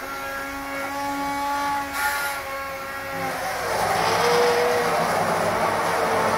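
Electric hand blender motor running in a pot of chopped tomatoes, a steady whine at first. About three and a half seconds in, the pitch dips slightly and it grows louder and rougher as the blade purées the tomatoes.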